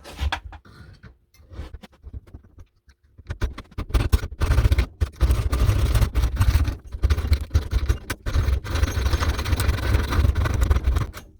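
Hacksaw cutting through the thread of a sheared-off bolt stuck in an old pipe wrench. After a few scattered knocks of handling, rapid back-and-forth strokes start about three seconds in and run on with brief pauses.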